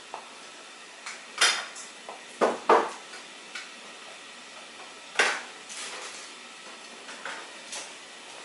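Dishes and cutlery clinking and knocking as they are handled: a series of sharp clinks, the loudest about a second and a half in, a close pair between two and a half and three seconds in, and another a little after five seconds.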